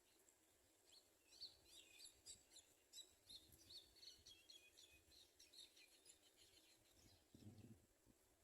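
House sparrows chirping faintly: a quick run of many short, high chirps, thinning out after about six seconds.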